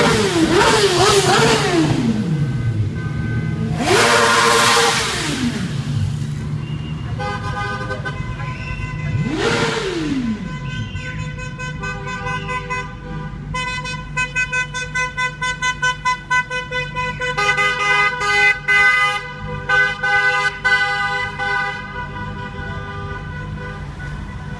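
Escort motorcycles revving as they pass by close, each engine note rising and then falling away, three times. Then several car horns of a wedding convoy honk together over and over, with quick repeated toots in the second half.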